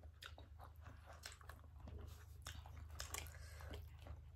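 Faint chewing and wet mouth clicks of people eating soft steamed momos, irregular and close to the microphone, over a low steady hum.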